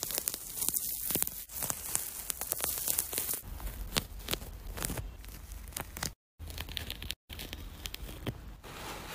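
Orange peel crackling and tearing as wedges of rind are pulled off the fruit with metal tweezers, dense with small snaps for the first few seconds. It is followed by quieter scratching as the white pith is picked off the segments. The sound cuts out briefly twice near the end.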